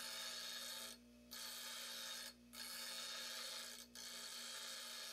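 Bench grinder wheel grinding the broken end of a steel wood-lathe chisel to reshape it: a steady hissing rasp over the grinder motor's low hum. The rasp stops briefly three times while the hum carries on.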